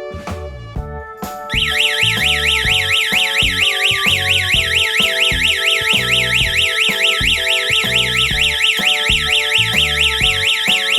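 Electronic security alarm siren warbling rapidly up and down in pitch, about four to five sweeps a second, starting about a second and a half in and cutting off abruptly near the end after about ten seconds: the system's timed alarm cycle, which sounds for 10 seconds and then switches off automatically. Background music plays underneath.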